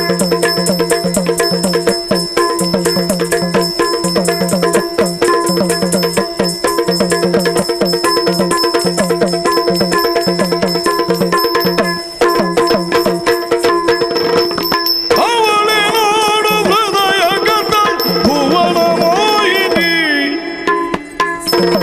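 Yakshagana ensemble playing: chende and maddale drums beat fast strokes over a steady drone, with hand cymbals and the dancer's ankle bells jingling. About fifteen seconds in the drumming drops out and a wavering sung phrase is heard for a few seconds, then the drums come back in near the end.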